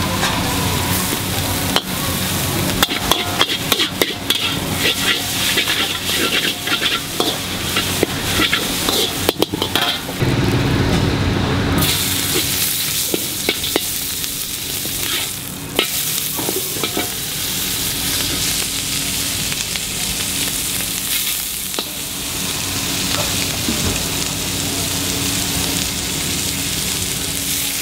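Char kway teow stir-frying in a large wok: a metal spatula scrapes and clanks rapidly against the wok over hot, sizzling oil. About halfway through the clanking thins out and a steady sizzle carries on, with an occasional strike.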